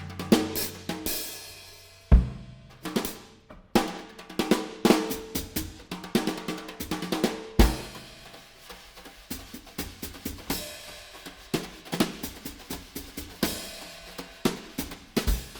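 Recorded instrumental music led by a drum kit: a busy pattern of snare, kick drum and cymbal hits over a few held low notes, with two heavy kick strokes, one about two seconds in and one at about seven and a half seconds.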